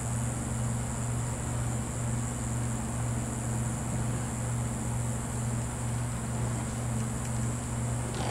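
Steady low hum of a running machine, even and unchanging, with a constant high hiss above it.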